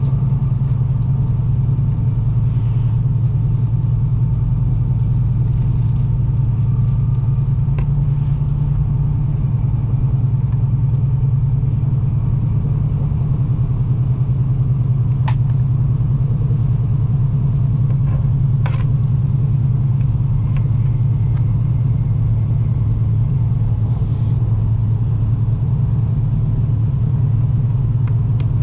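Joetsu Shinkansen train running at speed, heard from inside the passenger cabin: a steady, loud low rumble, with two sharp clicks around the middle.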